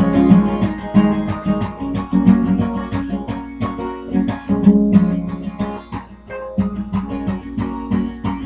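Acoustic guitar strummed in a steady rhythm of chords, the instrumental opening of a song before any singing.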